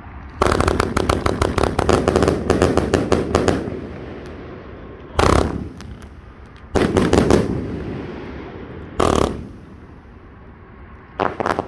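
A 232-shot firework cake firing. A fast string of shots runs for about three seconds, then comes a single loud report about five seconds in, a quick cluster of shots around seven seconds, another single report about nine seconds in, and a short cluster near the end.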